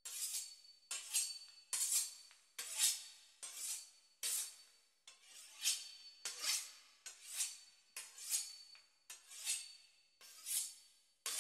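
A knife sawing through the crisp puff-pastry crust of a beef Wellington, with repeated rasping strokes about one a second.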